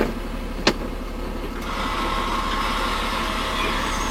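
Iveco Eurocargo expedition truck on the move: steady engine and road noise, with two sharp clicks near the start and the noise growing louder after about a second and a half.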